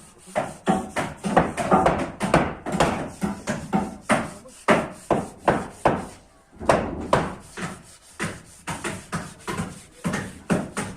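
A rapid, uneven series of sharp knocks, about two to three a second.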